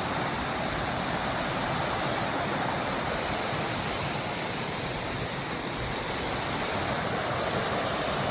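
Steady rush of a waterfall, an even, unbroken noise of falling water.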